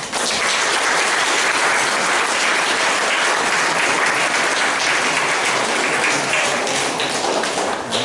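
Audience applauding, a steady run of clapping that dies away near the end.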